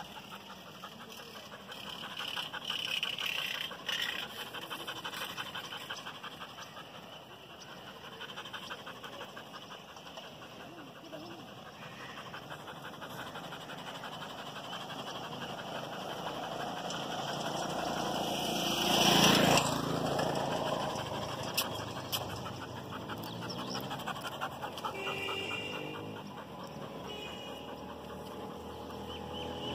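A dog panting rapidly and steadily, with a loud rush of noise about two-thirds of the way through.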